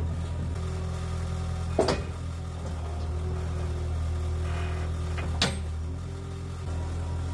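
Skid steer engine running steadily at a low idle, with two sharp metal clanks, about two seconds in and again about five and a half seconds in.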